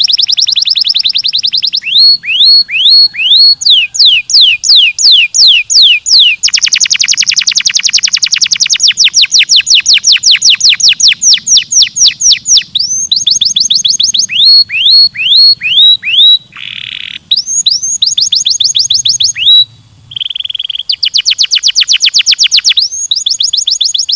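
Domestic canary singing a long, loud song of rapid trills: runs of quick repeated whistled notes and fast falling sweeps, changing from one tour to the next, with two brief buzzy notes later on.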